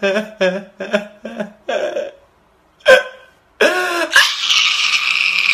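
A man sobbing loudly in short, gasping cries, about two a second, then breaking off briefly before a long, strained wailing cry from about four seconds in.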